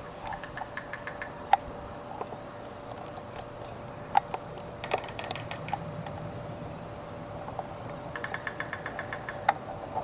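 Downy woodpecker tapping at wood: a quick run of taps near the start and another near the end, with a few single sharp knocks between.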